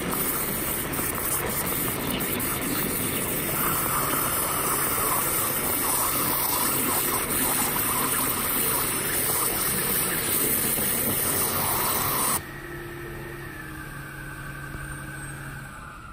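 High-pressure waterjet of a 5-axis Flow waterjet cutting with water only, the jet running under the water in the catch tank: a loud, steady hiss of churning water. About twelve seconds in the jet shuts off abruptly, leaving a quieter steady machine hum.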